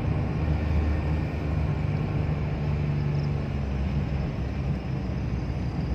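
A four-wheel-drive vehicle driving along at steady speed, heard from inside the cabin: a steady low engine hum over tyre and road noise.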